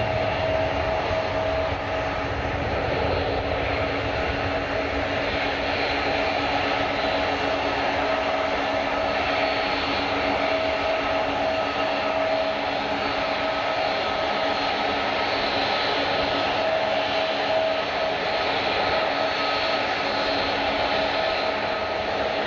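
Jet airliner engines running steadily: an even rushing noise with a steady whine held through it.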